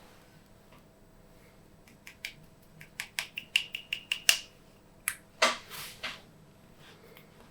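Glossy slime being worked by hand, its trapped air popping in a run of sharp clicks from about two seconds in, thickest around the middle, followed by two longer, wetter bursts.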